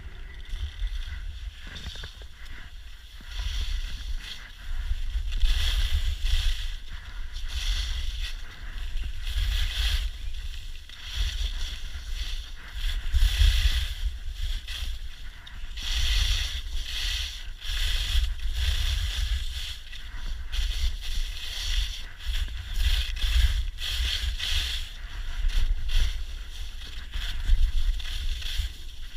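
Skis scraping and carving over firm groomed snow, surging every second or two with the turns, under a steady low rumble of wind buffeting the microphone.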